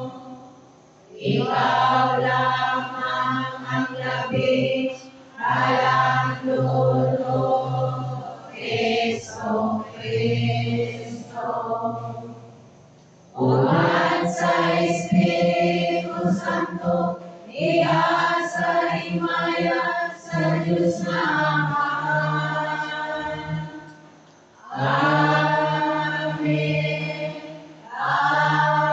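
A man singing liturgical chant into a microphone over the church's loudspeakers, in three long phrases with short breaks between them.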